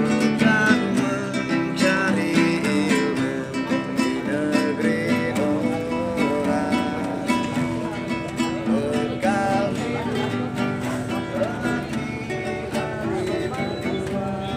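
Nylon-string classical guitar strummed in steady chords by a street busker, with a man singing a melodic line over it.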